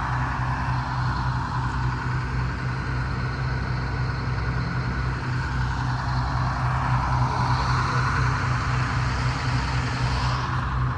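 GE 55-ton diesel-electric locomotive idling with a steady low drone.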